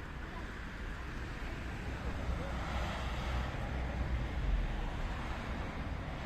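Street traffic: a steady low rumble of passing vehicles that swells and fades around the middle.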